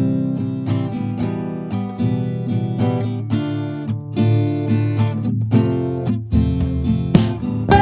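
Background music: acoustic guitar picking and strumming over a steady bass line, with more instruments joining near the end.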